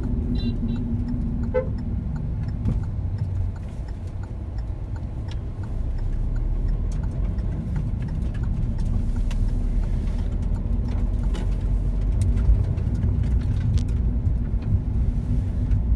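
Steady low rumble of a car driving, heard from inside the cabin: engine and tyre noise that eases slightly a few seconds in and then builds again. It is dotted with light clicks and rattles, and there is a brief high chirp near the start.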